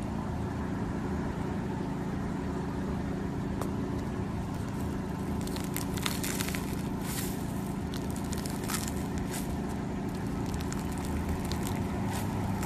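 Foam-bead slime (floam) crackling and crunching as fingers press and squeeze into it, starting about five seconds in, over a steady low hum.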